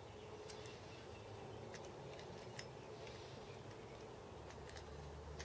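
Scattered faint metallic clicks and ticks as a hex key turns set screws in a cast fly cutter body, irregular and a second or so apart.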